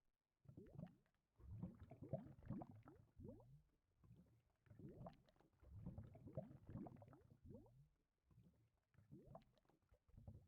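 Faint gurgling in irregular bursts of short, quickly rising squelches, with brief pauses between the bursts.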